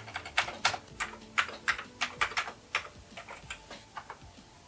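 Typing on a computer keyboard: a quick, irregular run of key clicks, about four a second, entering a command at a shell prompt.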